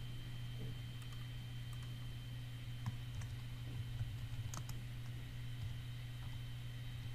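Faint computer keyboard typing, a scattered run of keystrokes, over a steady low hum.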